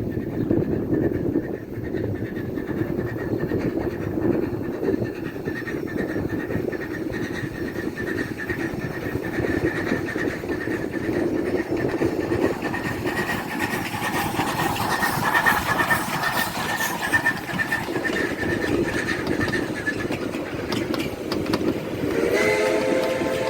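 Heritage railway train running, a steady rumble and rattle with a thin steady high tone over it; the sound grows brighter and noisier for a few seconds past the middle. A short pitched sound starts near the end.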